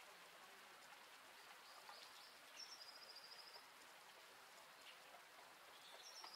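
Faint outdoor hush with a small bird's high, rapid trill, heard twice, each about a second long: once a little before the middle and again near the end.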